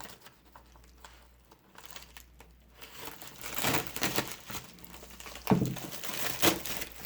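Mail packaging being crinkled and torn open by hand: quiet for the first few seconds, then a run of crinkling and rustling, loudest twice near the end.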